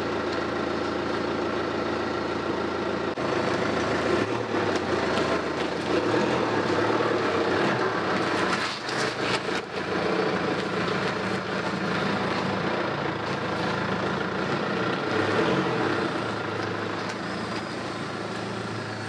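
Hyundai Trajet minivan's engine running steadily as the van pulls out of a parking space at low speed and drives off, with a few brief knocks near the middle.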